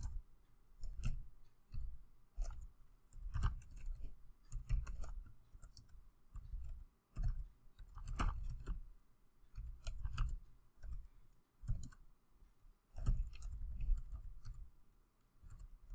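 Typing on a computer keyboard: irregular bursts of key clicks with short pauses between them.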